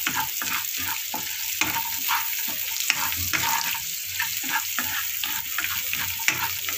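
Onions, peanuts, roasted split chickpeas and curry leaves sizzling in hot oil in a kadhai, with a wooden spatula stirring and scraping the pan in quick, irregular strokes.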